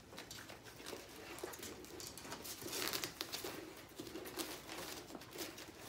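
Three-week-old Siberian husky puppies nursing: a busy patter of wet suckling and smacking clicks, with small puppy squeaks and grunts mixed in.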